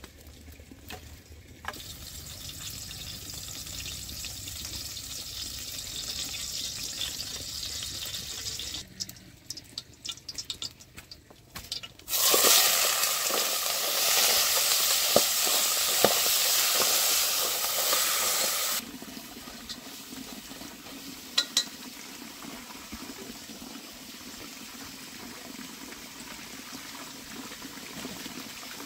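Food sizzling in a pot over a wood fire as it is stirred with chopsticks. The sizzle starts suddenly and loudly about twelve seconds in, lasts about six seconds and cuts off. Softer sizzling and a few utensil clicks come before and after it.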